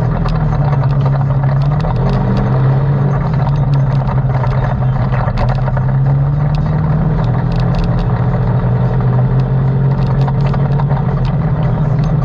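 ATV engine running steadily, its pitch rising briefly about two seconds in, with scattered clicks and rattles over it.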